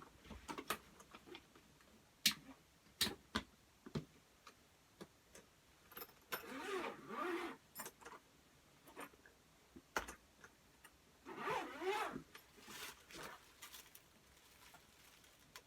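Suitcase being unzipped and opened, handled by hand: scattered clicks and knocks with a few stretches of zipper and rustling noise.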